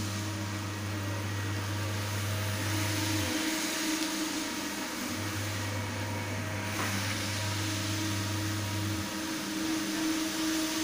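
Rotary single-disc floor scrubber running steadily as its brush scrubs a foam-soaked carpet, a constant motor hum. A deeper drone under it cuts out for about two seconds, twice.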